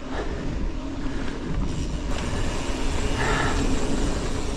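Canyon Spectral mountain bike riding a dirt forest singletrack: the tyres rolling over the trail and the bike's movement make a steady rumbling noise, picked up by a GoPro mounted on the bike.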